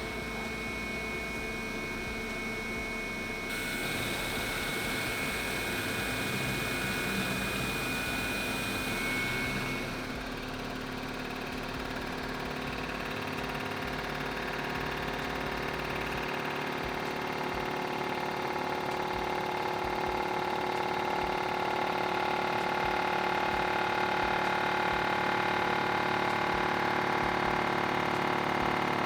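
CNC machining centre running while it machines an engine block, a steady machine whine made of several held tones that change about 3.5 and 10 seconds in, growing a little louder later.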